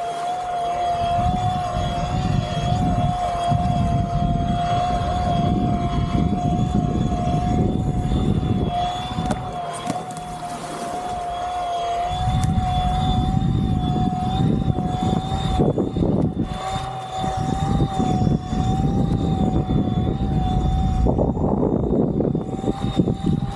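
Fliteboard Ultra eFoil's electric motor and propeller whining at a steady, slightly wavering pitch as the board flies on its hydrofoil. Under the whine, a rumble of wind on the microphone comes and goes.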